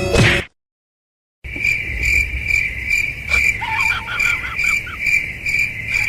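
Cricket chirping steadily, about two to three chirps a second, starting after a brief cut to silence about a second and a half in. Faint short squeaks over the chirping in the middle and near the end. A bit of music cuts off in the first half second.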